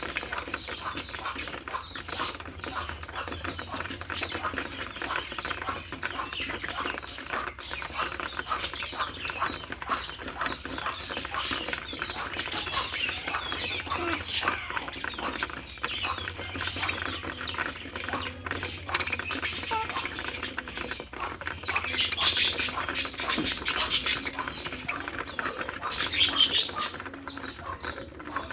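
Budgerigar chattering and warbling without a break: a dense run of quick chirps, clicks and squeaks, louder in short spells toward the end.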